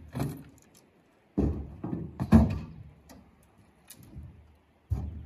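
A few dull thumps and knocks, the loudest about two seconds in, with some lighter clicks between.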